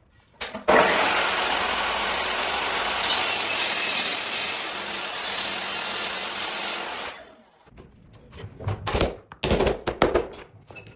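Power tool working parquet wood: a loud, even rasping noise that starts abruptly just under a second in and stops about seven seconds in, followed by a few knocks and clatters of handling.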